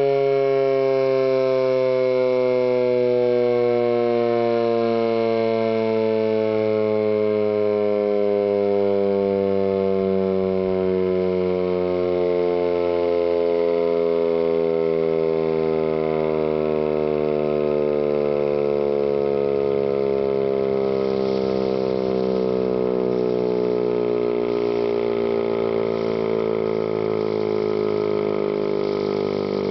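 ASC T135 AC/DC outdoor warning siren winding down after its alert: one steady, loud tone sliding slowly lower in pitch.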